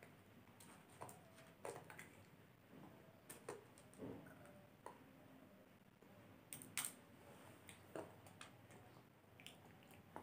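Faint, scattered clicks and light crunches of a toddler picking crunchy stick snacks off a plastic plate and chewing them, with one sharper click about two-thirds of the way through.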